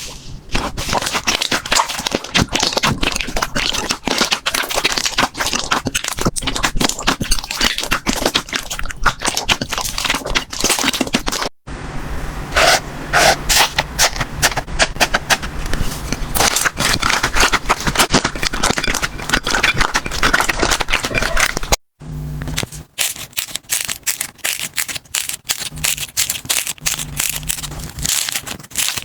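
Slime being pressed, squeezed and stretched by hand, giving dense crackling and popping clicks. The sound comes in three stretches, separated by brief cuts about 11 and 22 seconds in.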